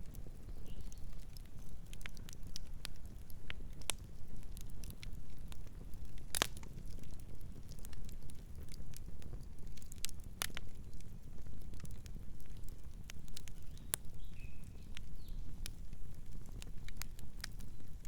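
Campfire burning: a steady low rumble of the flames with scattered crackles and sharp pops from the burning wood, the loudest pops about six and ten seconds in.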